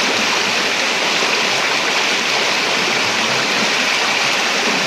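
Shallow, fast-flowing river water rushing steadily, an even hiss of running water with no breaks.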